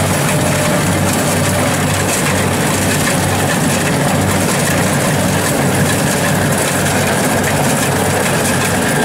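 Tracked rice combine harvester running steadily as it cuts through the field: a loud, even engine drone.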